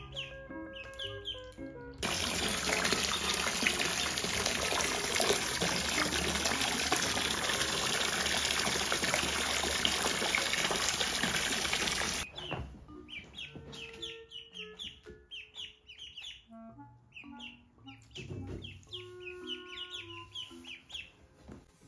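A jet of water from a hose splashing into a shallow inflatable pool, starting about two seconds in and cutting off suddenly about ten seconds later. Ducklings peep before and after it.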